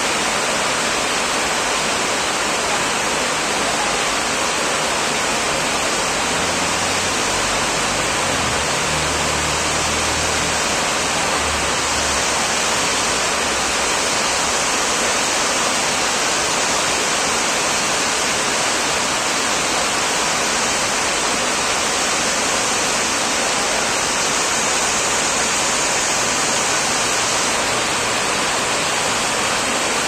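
Aquarium water and aeration: a steady rushing, bubbling hiss of water and air bubbles in the tank, unchanging throughout.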